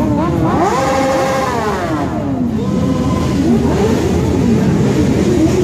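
Sport motorcycle engines revving hard. One engine rises about half a second in, holds high for about a second and falls away, then several engines rev in shorter, overlapping blips.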